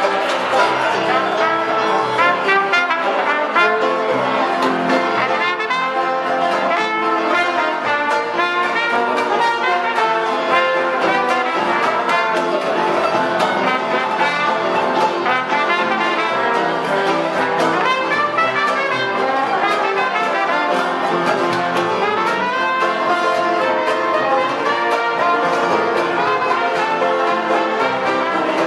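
Live Dixieland jazz band playing: trombone and trumpet lead over banjo, upright string bass and piano.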